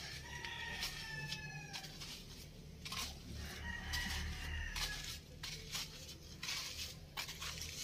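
A rooster crowing twice, each call long and drawn out and falling slightly in pitch, over a low steady rumble.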